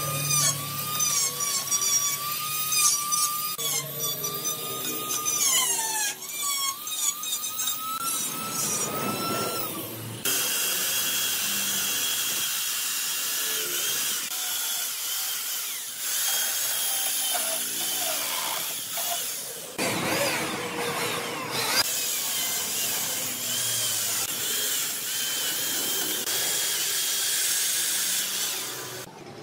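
Electric angle grinder carving into a wood stump, its motor whine wavering in pitch as it bites. About ten seconds in, a corded electric chainsaw takes over, cutting the wood with a hissing rasp and a few brief pauses.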